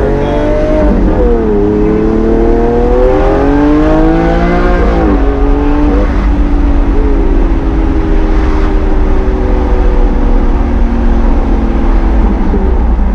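Lamborghini Aventador's V12 engine pulling through the gears: the revs fall at a shift about a second in, climb for a few seconds, fall at another shift about five seconds in, then hold a steady, lower drone at cruise over a constant road rumble.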